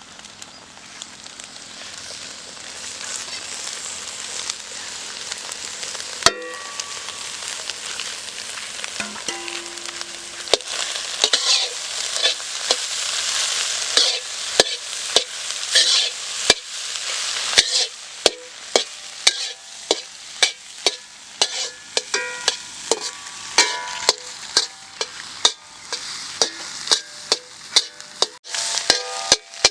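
Chicken egg podimas sizzling in a hot pan while a metal spatula stirs it. The frying hiss builds over the first half, and from about halfway the spatula knocks and scrapes against the pan in a steady rhythm, about two strokes a second.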